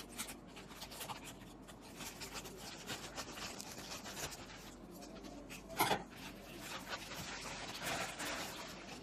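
Small cardboard product box being handled and opened: irregular rubbing, scraping and rustling of the packaging, with one louder, sharper sound about six seconds in.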